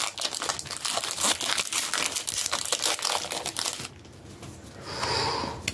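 Foil booster-pack wrapper crinkling as it is handled, a dense crackle that drops away after about three and a half seconds, followed by a short hiss about five seconds in.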